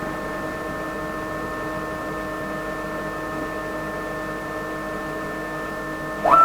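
Steady electrical whine of a 6040 CNC router, several fixed tones at once. Near the end comes one brief stepper-motor move whose pitch ramps up, holds and drops, as the Z axis moves during automatic tool zeroing.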